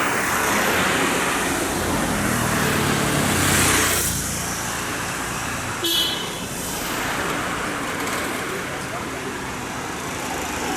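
Audi RS5 with a Capristo exhaust running amid traffic noise, swelling to its loudest about four seconds in. A single sharp crack comes about six seconds in.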